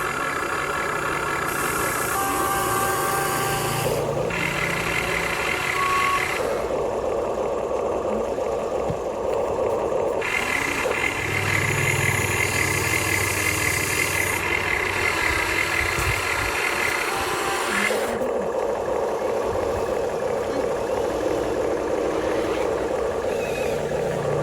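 Radio-controlled toy excavator's electric motors and gear drives whining as different functions are worked, the pitch and tone switching every few seconds as one movement stops and another starts.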